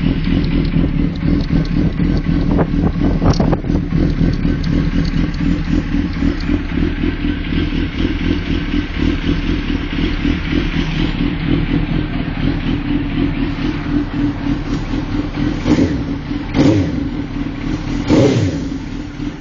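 Suzuki GSX-R 1000's inline-four engine idling steadily through an aftermarket IXIL twin-outlet exhaust, with three short throttle blips near the end.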